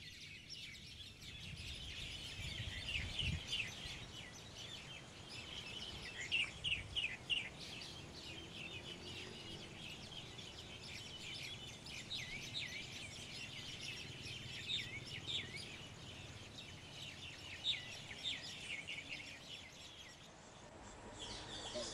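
Many small birds chirping together, quick high chirps overlapping densely and continuously, over a low background rumble.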